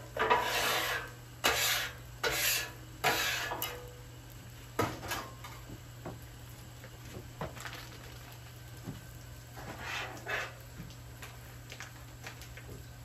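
Metal spatulas scraping across a steel flat-top griddle as tater tots are tossed: several loud scrapes in the first four seconds, then lighter clicks and taps of the spatulas.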